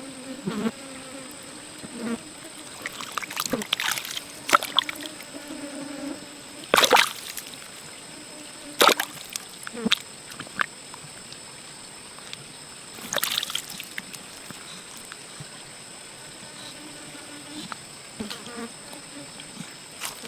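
A series of irregular knocks and scrapes from hand work, the sharpest about seven, nine and thirteen seconds in, over a steady faint background hum.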